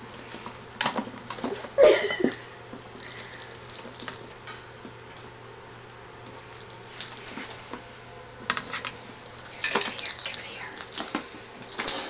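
Ferrets play-fighting in a wire playpen: irregular bursts of metallic jingling and rattling with knocks against the wire panels and a plastic box. It eases off for a few seconds in the middle, then picks up again.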